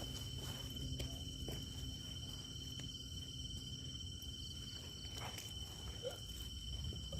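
Night insects, such as crickets, chirring steadily in one continuous high note, with a low rumble and a few faint clicks underneath.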